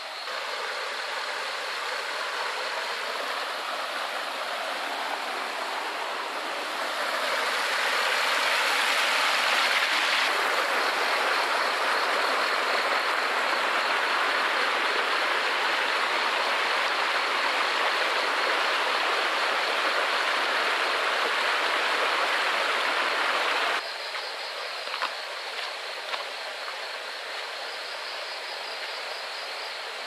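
Steady rush of flowing water that gets louder about seven seconds in and cuts off suddenly about 24 seconds in. After that, night insects trill with a fast, pulsing high chirr, with a few light knocks.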